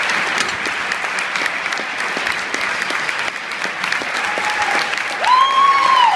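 Auditorium audience applauding steadily. Near the end one high call from the crowd rises, holds and falls away over the clapping.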